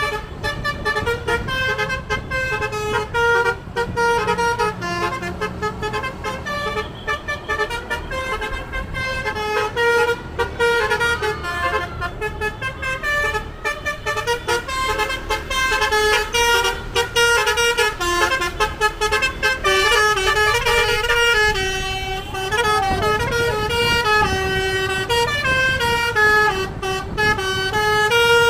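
A bus's 'telolet basuri' multi-tone melody horn plays a tune, its notes stepping quickly up and down without a break.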